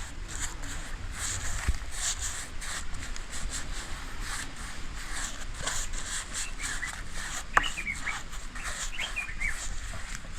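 Short bird chirps in the second half, several quick calls rising and falling, over a light steady outdoor hiss.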